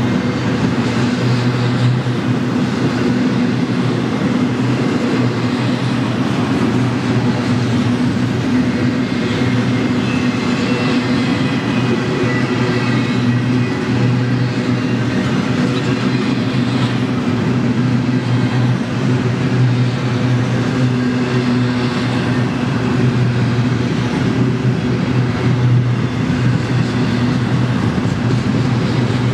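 Double-stack container train's loaded well cars rolling steadily past close by: a loud, continuous rumble of steel wheels on rail.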